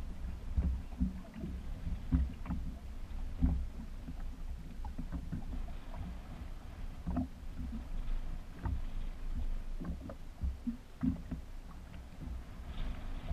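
Water slapping and knocking against the hull of a small open boat, a run of irregular low thumps with a few sharper knocks.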